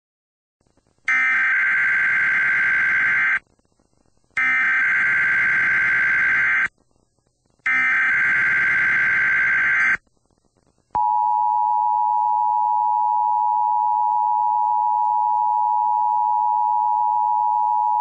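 Emergency Alert System header: three bursts of SAME digital data tones, each a little over two seconds with a second's gap between them, then the steady two-tone EAS attention signal starting about eleven seconds in.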